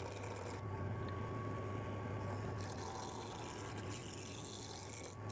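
Wood lathe motor running with a steady hum while a gouge cuts the spinning wooden spindle blank, roughing it down to round. The cutting noise swells and fades.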